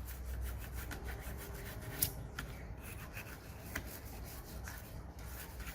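A circuit board being scrubbed clean with solvent: quick, steady rubbing strokes, with a couple of sharper ticks. The cleaning is meant to rule out a short circuit on the board.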